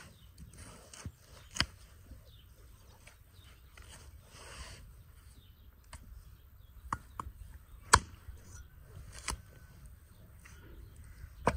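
Knife cutting raw goat meat and ribs on a wooden tree-stump chopping block: soft slicing and scraping strokes with several sharp knocks on the wood, the loudest about 8 seconds in.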